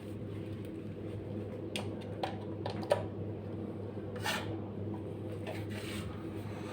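Ceiling fan motor humming steadily, the low hum typical of a fan run from a UPS/IPS inverter. A few sharp clicks come around two to three seconds in, the loudest at about three seconds, and a short rustle follows a second later.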